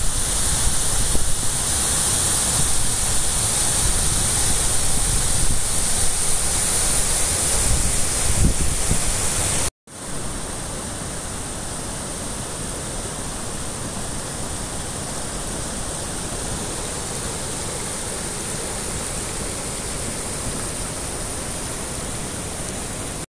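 Floodwater rushing in a swollen, muddy river: a loud, steady rush. It breaks off in a cut about ten seconds in and is followed by a quieter, steady rushing.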